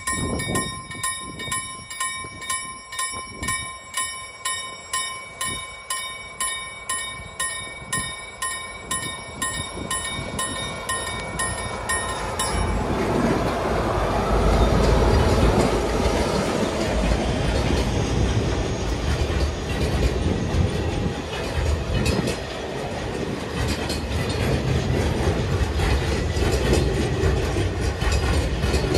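Level-crossing warning bell ringing in regular strokes, about one and a half a second, which stops about twelve seconds in as the train reaches the crossing. Then a freight train hauled by a pair of Dv12 diesel-hydraulic locomotives passes, its engines loudest just after the bell stops, followed by the steady rolling of empty log wagons over the crossing.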